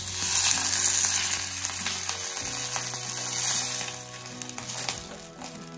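Water poured into a hot pan of onions, cashews and whole spices sautéed in oil, sizzling loudly as it hits the oil; the sizzle dies down after about three seconds as the pan cools.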